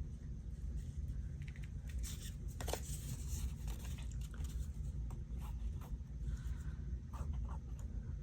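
Paper being handled during collage work: scattered light rustles, taps and small clicks, over a steady low hum.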